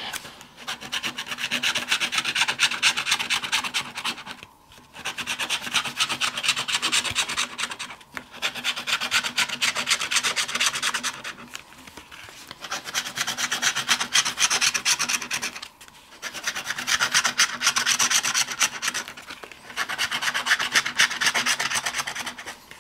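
Rapid scratching of the coating off a $5 Million Money Maker scratch-off lottery ticket's symbol area, in about six bursts of a few seconds each with short pauses between.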